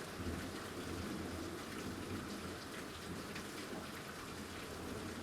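Heavy rain falling steadily in a severe thunderstorm, an even wash of noise with faint scattered drop ticks.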